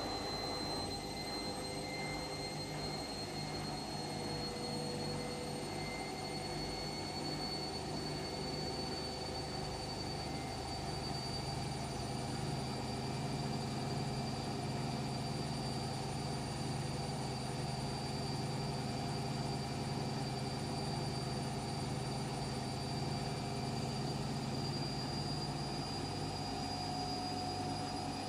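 Washing machine running, with a steady low hum and a high motor whine that climbs slowly in pitch throughout.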